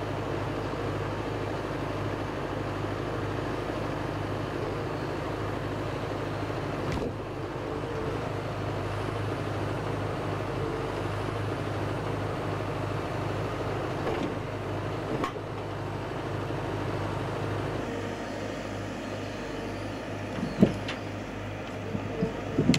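Komatsu 835 forwarder's diesel engine running steadily, with a couple of sharp knocks near the end.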